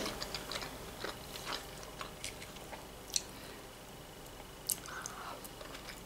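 Faint chewing of a mouthful of macaroni and sausage, with scattered soft mouth clicks.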